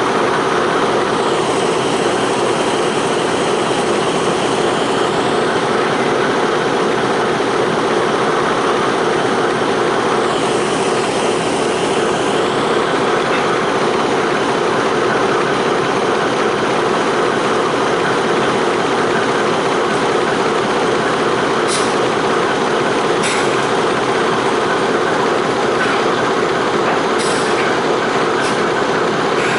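Heavy engine on a railroad locomotive or crane car, running steadily at close range. A few sharp metallic clanks come in the last several seconds.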